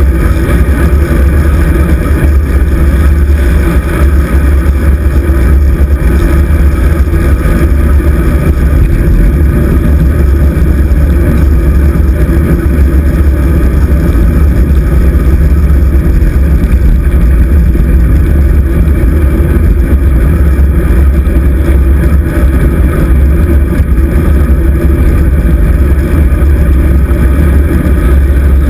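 Loud, steady wind rumble buffeting the microphone of a GoPro Hero 2 mounted on a moving bicycle's handlebars.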